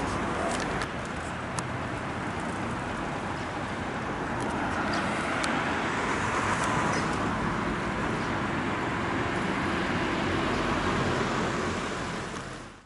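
Steady road traffic noise of a city street, with a few light clicks, fading out near the end.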